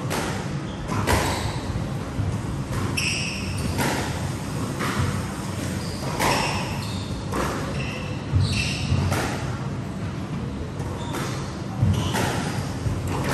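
Squash rally: the ball cracks off rackets and the walls in irregular sharp hits, about one every second or two, with brief shoe squeaks on the wooden court floor, over a steady low hum.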